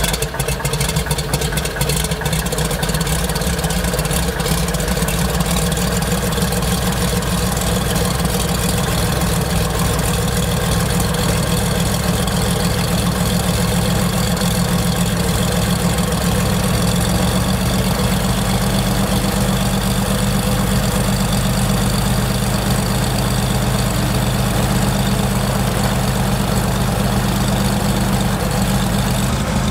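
Cessna 182's six-cylinder piston engine and propeller idling steadily, just started for the first time after sitting fifteen years.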